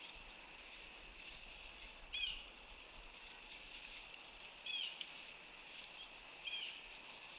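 Faint outdoor wetland sound: a short high call repeated about every two seconds, three times, over a steady high-pitched chorus.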